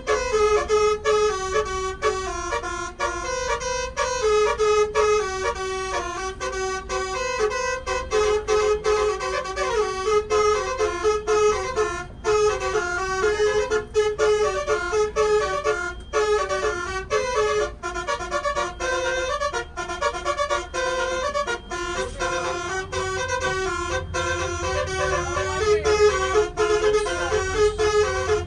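Bus telolet horn, a Basuri air horn with twelve roof-mounted trumpets, playing a fast tune note after note, with the bus's low engine rumble underneath.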